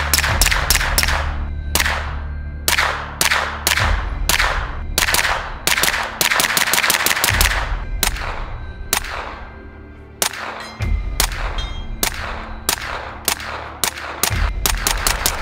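Quick strings of suppressed 9mm gunshots through a Sonus 9 silencer, from a handgun and a KRISS Vector carbine, each shot with a short ringing tail. Under them runs background music with a deep bass hit about every three and a half seconds.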